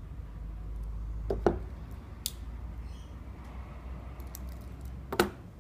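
Swiss Army Soldier's knife tools clicking as they are handled and snapped open or shut: a sharp snap about a second and a half in, a lighter click soon after, and another sharp snap near the end, over a low steady hum.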